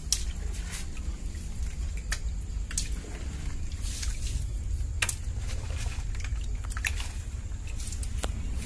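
Water splashing and dripping in a plastic bucket, with a handful of sharp, separate drip-like clicks over a steady low rumble.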